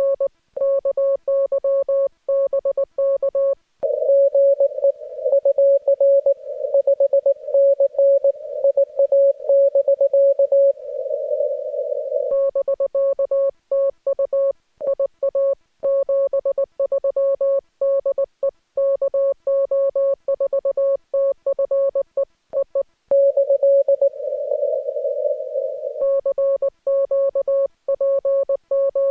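Morse code (CW) from a ham radio: a single steady tone of about 550 Hz keyed on and off in quick dots and dashes. From about 4 to 12 seconds in and again from about 23 to 26 seconds in, a narrow band of hiss surrounds the tone.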